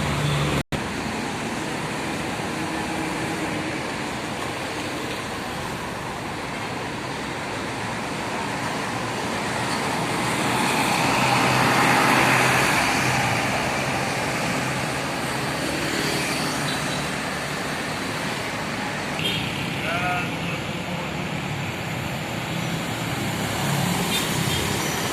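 Roadside traffic noise, with a vehicle passing whose sound rises and fades about halfway through. The audio cuts out for a split second near the start.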